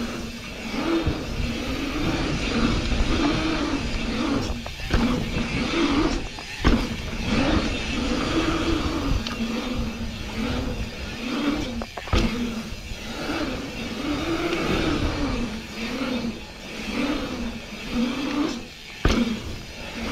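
Mountain bike's knobby tyres humming on a paved pump track, the hum rising and falling in pitch about once a second as the bike pumps over the rollers. Wind rushes over the handlebar camera's microphone, and a few sharp knocks come from the bike.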